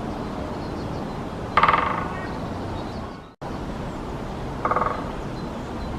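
Woodpecker drumming: two short, very rapid rolls of knocks on wood, the first about a second and a half in and louder, the second near the end and fainter, over a steady background rush.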